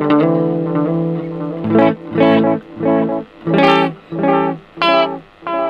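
Electric guitar played through a Pedaltank Time Capsule 2 analog delay pedal with its delay time at maximum. A run of notes is followed, from about two seconds in, by evenly spaced separate notes about every 0.6 s: the long-delay repeats at their widest spacing.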